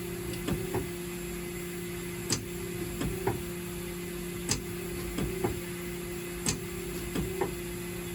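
A steady low electrical hum with short, sharp chirps falling in pitch at irregular intervals, about one every second.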